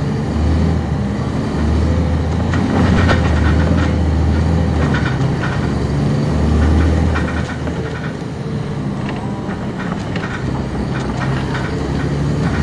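Cummins ISC diesel engine of a 1999 NovaBus RTS transit bus, heard from inside the bus. It runs loudly through the first seven seconds or so, eases back, and picks up again near the end, with light rattles and clicks from the cabin.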